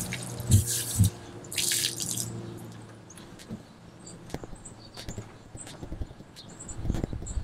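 Wet-towel cleaning of a plastic kayak: a couple of low thumps, a short burst of running water about two seconds in, then scattered small drips, clicks and rubbing, with a louder knock near the end.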